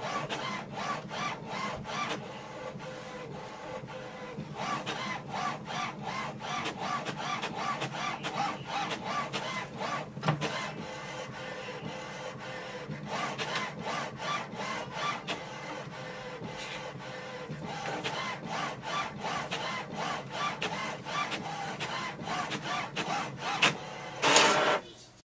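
HP OfficeJet Pro 9012 inkjet printer printing its print-head alignment page: the print head shuttles back and forth in rapid, rhythmic ticking passes that come in spells with short pauses as the sheet advances. A short louder burst comes near the end.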